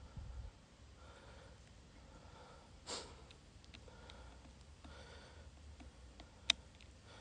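Faint sounds from the person filming by hand: a low rumble of handling at the start, a short breath about three seconds in, and one sharp click near the end.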